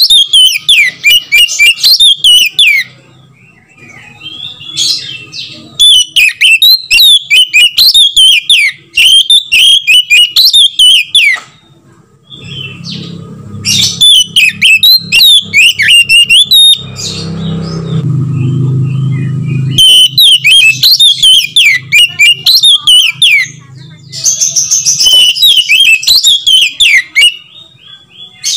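Oriental magpie-robin singing loudly: rapid, varied whistled phrases delivered in several long bursts with brief pauses between them.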